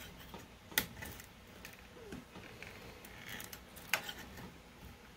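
A metal scraper scraping and clicking against a 3D printer's build plate as it is worked under the base of a print to pry it loose: a sharp click about a second in and another near four seconds in, with faint scraping between.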